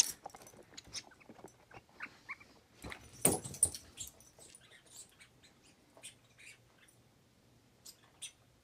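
Small dog playing with a toy: scattered light clicks and scuffles, with a louder scuffling burst a little over three seconds in, then only faint occasional ticks as the dog moves off.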